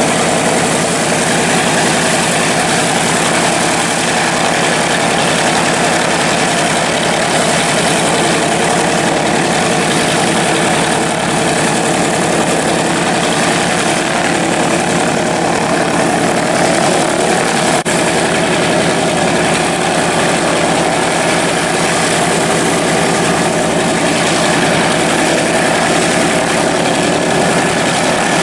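Grumman TBM Avenger's big radial engine idling steadily with its propeller turning while the aircraft sits on the ramp after taxiing in. Faint click about two-thirds of the way through.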